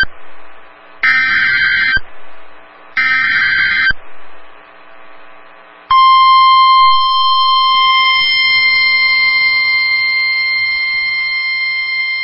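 NOAA Weather Radio KWO35 sending a SAME alert header: buzzing digital data bursts, each about a second long and a second apart, the last two at about one and three seconds in. About six seconds in, the steady 1050 Hz Warning Alarm Tone starts and holds, marking the start of a new flood warning broadcast.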